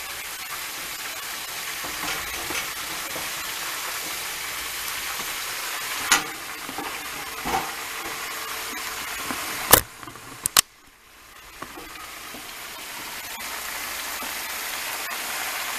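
Chicken wings deep-frying in a pot of hot oil with a steady sizzle, stirred and turned with metal tongs. A few sharp clacks of the tongs on the pot, two of them loud just before the middle. The sizzle drops away briefly about two-thirds in, then builds back.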